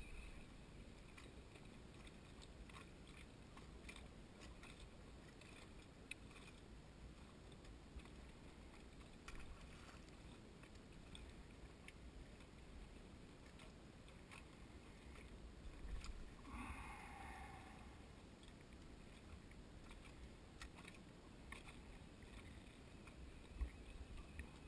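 Near silence: faint lapping of small waves against a dock, with a few light ticks. One short pitched call sounds about two-thirds of the way through.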